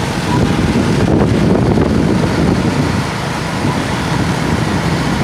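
Wind buffeting the microphone on a moving motorcycle, mixed with the motorcycle's running and road noise.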